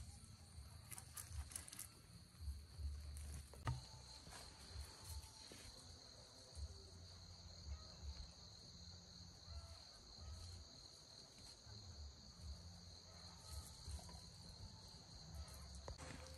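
Insects chirring in a steady, high-pitched continuous drone that grows stronger about four seconds in. A few faint knocks sound in the first seconds, with a sharp tap just before four seconds.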